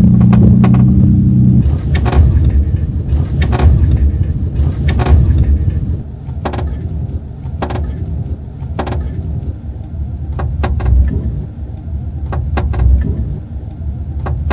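Subaru Forester's passenger-side B-pillar trim creaking in a string of short, sharp clicks every second or so over the low road rumble in the cabin: a creak that has come back after a repair.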